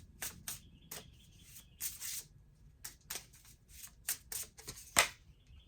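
Oracle cards being shuffled by hand: a run of irregular quick card flicks and slaps, with one sharper snap about five seconds in.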